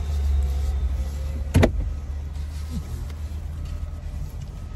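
Low, steady rumble of a car idling, heard from inside the cabin, with one short sharp sound about one and a half seconds in.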